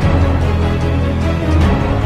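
Background music with a steady, heavy bass line.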